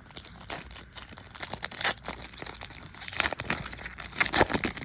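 Trading card pack wrapper crinkling as it is opened and handled: irregular crackles that come in flurries, loudest near the middle and towards the end.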